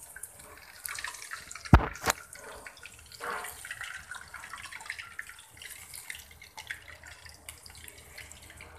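Doughnuts deep-frying in hot oil, the oil sizzling with a dense, steady crackle. Two sharp knocks stand out about two seconds in.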